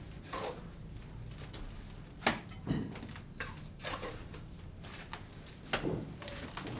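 Scattered sharp knocks and light clatter, irregular and a second or more apart, the loudest about two seconds in and again near six seconds.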